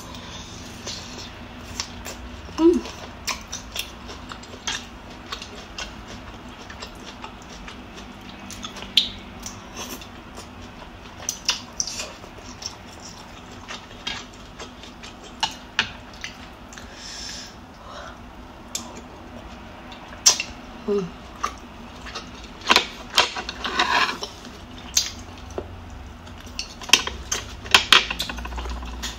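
Eating pho: a metal spoon and wooden chopsticks clinking and tapping against a white ceramic bowl, with rice noodles and broth slurped and chewed. The clinks and slurps come in scattered clusters, busiest near the end.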